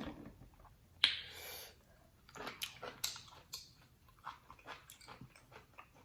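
Close-miked eating sounds: irregular chewing, wet lip smacks and clicks, with a short slurp about a second in.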